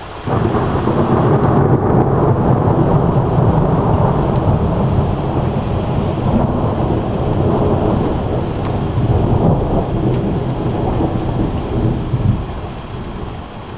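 A thunderclap breaks suddenly, then a long, loud low rumble of thunder that eases off after about twelve seconds. Heavy rain falls steadily throughout.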